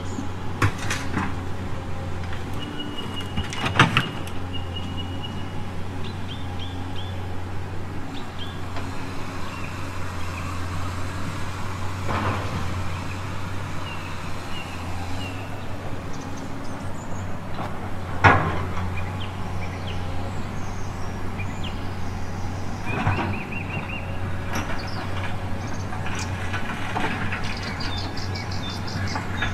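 Scale RC hydraulic excavator running with a steady low hum as it slews and works its boom and bucket, with a few sharp knocks scattered through.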